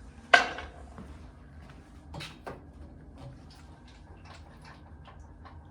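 Motorcycle on a motorcycle lift being rocked to test its stability: one sharp knock just after the start, then a couple of lighter knocks about two seconds in and faint clicks.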